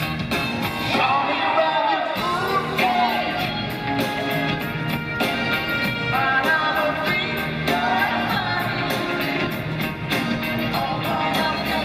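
Live rock band with a male lead voice singing over a steady drum beat and electric guitar.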